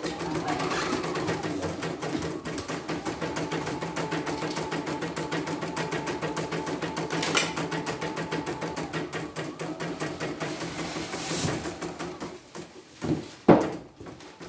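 CNY portable embroidery machine stitching a test design: the needle bar clatters at a fast, even rate over the motor's steady hum, and the motor runs freely rather than dragging on its newly replaced power supply. The stitching stops shortly before the end, followed by two sharp knocks.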